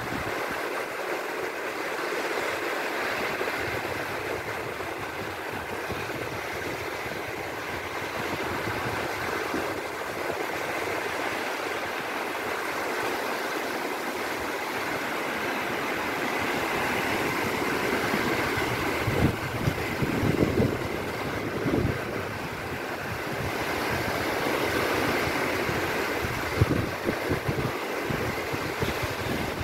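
Small sea waves breaking and washing over the shallows in a steady wash, with wind gusting against the phone's microphone in low thumps about two-thirds of the way through and again near the end.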